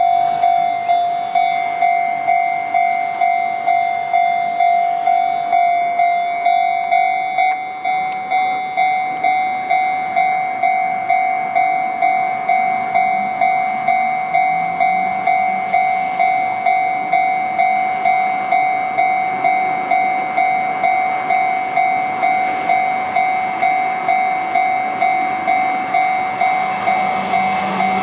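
Japanese level-crossing warning bell ringing steadily, a little under two strikes a second. A Sotetsu train's rumble grows under it and is loudest near the end as the train draws close.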